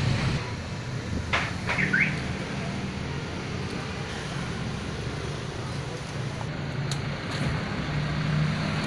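Street traffic: vehicle engines running steadily, with a few short high chirps about one and a half to two seconds in.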